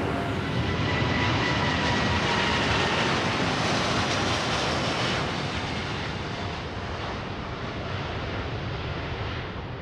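Boeing 787 Dreamliner jet engines at takeoff thrust: a loud steady rush of engine noise with faint whining tones that drop slightly in pitch as the airliner passes, then fading after about five seconds as it climbs away.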